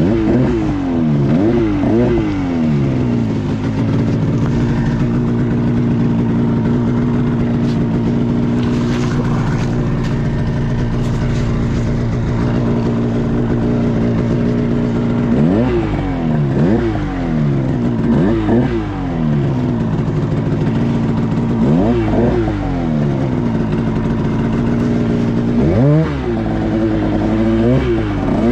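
Two-stroke mountain snowmobile engine revving hard with the sled stuck in deep powder: held at high revs for several seconds, then blipped up and down again and again through the second half.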